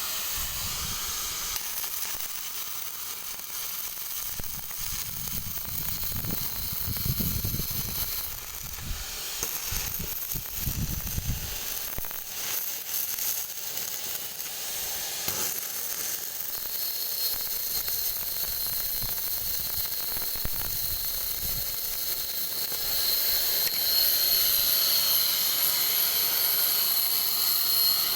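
Electric stick-welding arc crackling and sizzling steadily with a sharp high hiss, a little louder in the last few seconds.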